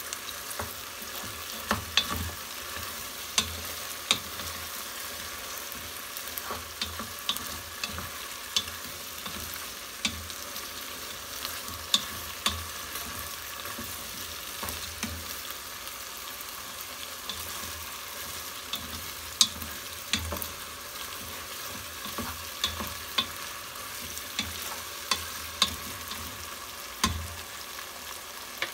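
Chicken pieces sizzling as they fry in a pot, stirred with a wooden spoon that knocks against the pot every second or two.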